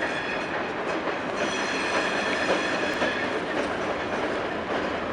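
Freight train rolling along, the wheels clattering on the rails, with a thin high steady squeal that joins in about a second and a half in.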